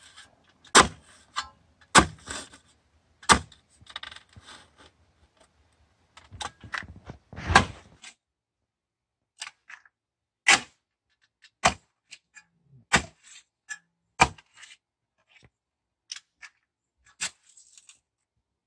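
Manual clamshell post hole digger jabbed again and again into hard, bone-dry ground, its steel blades striking with a sharp crack about every second and a quarter, with some scraping of loose dirt between strikes. The soil is packed as hard as concrete and dry as powder.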